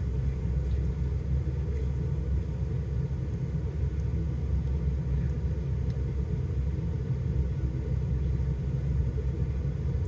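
Steady low rumble of an idling vehicle engine, heard from inside the cabin.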